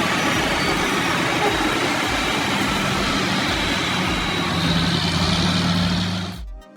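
Heavy logging truck's diesel engine running, with a steady engine note coming in about two and a half seconds in over dense road and wind noise; the sound cuts off abruptly near the end.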